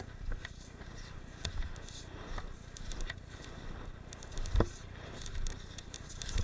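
Skis scraping and chattering over packed snow on a mogul run, heard through a helmet-mounted camera's microphone with a low rumble of wind. Scattered sharp clicks and knocks run throughout, with a heavier thump about four and a half seconds in.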